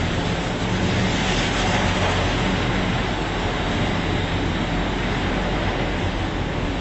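Glass passenger lift car travelling upward between floors: a steady running noise from the moving car.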